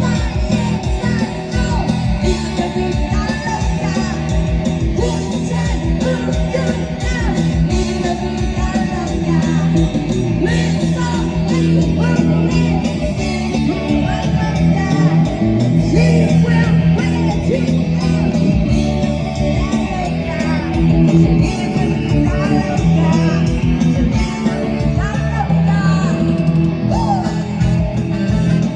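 A band playing a rock song, with singing over guitar and strong low bass notes.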